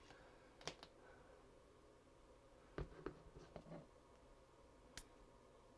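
Near silence with a few faint clicks and taps from small hand work: one about a second in, a short cluster around three seconds in, and a sharper single click about five seconds in.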